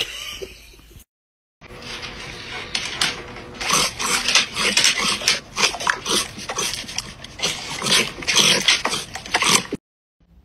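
Dog giving a run of short, sharp excited barks and yips, several a second and uneven in loudness, over a faint steady hum.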